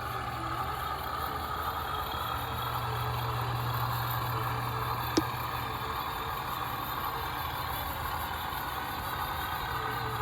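An Axial SCX10 II RC crawler's electric motor and gear drivetrain running steadily, with a low hum that drops out and returns. There is one sharp click about five seconds in.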